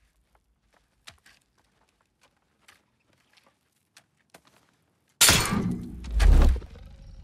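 Faint scattered creaks and ticks. About five seconds in, a sudden loud crash with a deep boom follows and fades after about a second and a half: a horror-film jump-scare hit.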